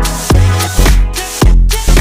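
Background dance music with a steady, thumping electronic beat.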